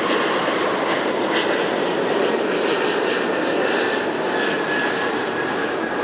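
Jet engines of a twin-engine widebody airliner (Boeing 777) climbing out after takeoff: a steady, loud roar with a thin whine that slowly drifts down in pitch as the plane moves away.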